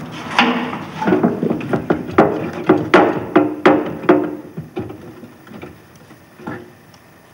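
Quick series of ringing metallic knocks, about three a second, as tools work on the bolted rear door of a German magnetic mine's steel casing. The knocks are loudest in the middle, thin out after about five seconds, and one more comes near the end.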